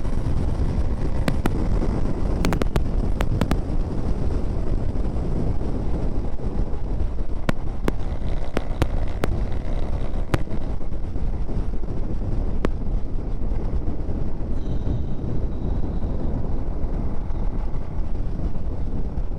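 Motorcycle riding at speed: steady rush of wind on the action camera's microphone mixed with engine and road noise, with a few sharp clicks scattered through.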